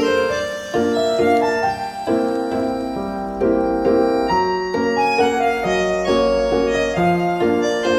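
Background music: piano playing a gentle melody of changing chords.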